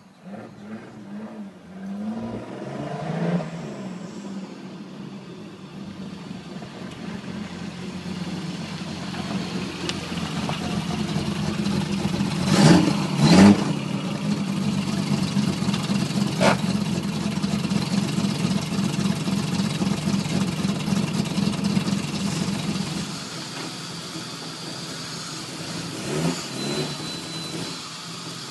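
A BMW E21's engine starts about two seconds in, then runs as the car drives slowly past, with two loud sharp bangs around the middle. The engine sound settles and drops a little in level near the end.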